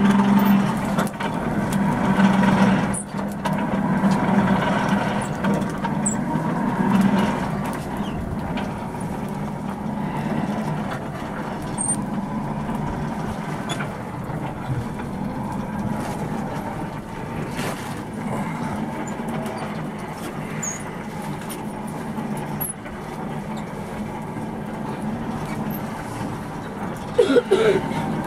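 Coal forge blower running steadily, a rush of air with a hum under it as it feeds the fire. A brief loud clatter near the end.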